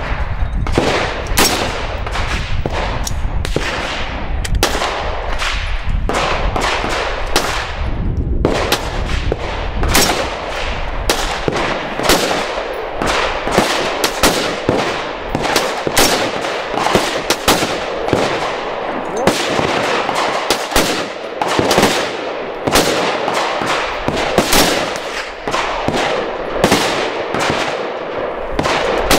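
Rifle gunshots, sharp cracks at irregular spacing, roughly one to three a second throughout.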